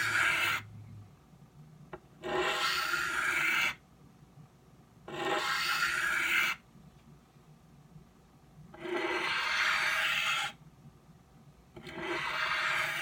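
Knife blade drawn across an oiled 12-inch Norton India/Crystolon bench stone in long strokes: a rasping hiss about a second and a half long, repeating roughly every three seconds, with one stroke ending just after the start and four more after it. The sound of the edge held at the right angle and cutting the way it should.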